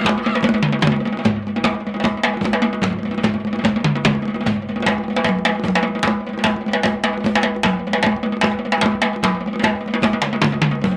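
Early-1970s rock band instrumental: a drum kit keeps a fast, steady beat while a bass line steps between notes underneath and sustained chords hold above.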